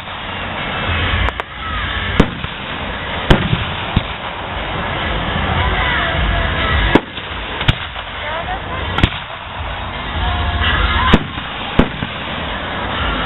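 Aerial firework shells bursting overhead: about eight sharp bangs at irregular intervals over a continuous rumble and crackle from the display.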